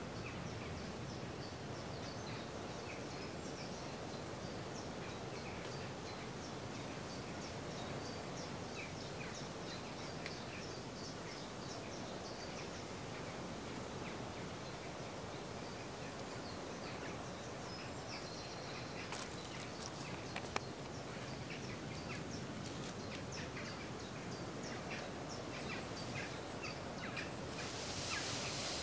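Small birds chirping again and again over a steady rush of wind and distant sea surf. A single sharp click about two-thirds of the way in, and a brief louder rush near the end.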